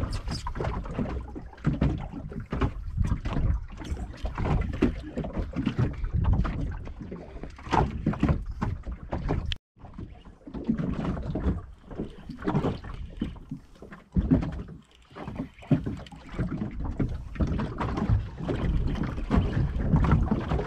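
Wind buffeting the microphone and water sloshing against a small fishing boat at sea, in uneven gusts and slaps with no steady engine note. The sound cuts out briefly about ten seconds in.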